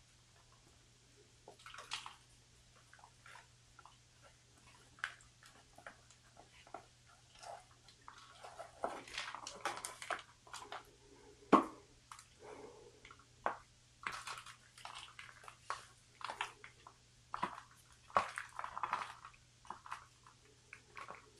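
Faint, irregular rustling, crackling and soft clicks of a houseplant being worked out of its black plastic nursery pot, with soil crumbling from the root ball and leaves brushing. The handling noises come thicker from about halfway through.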